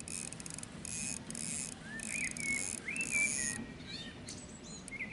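Small birds singing short whistled notes that rise and fall, over five short bursts of high hiss in the first three and a half seconds.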